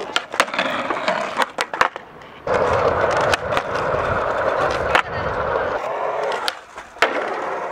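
Skateboard on concrete: wheels rolling, with sharp clacks of the board in the first two seconds. Then a loud scrape along a concrete ledge lasting about four seconds, and one more sharp clack near the end.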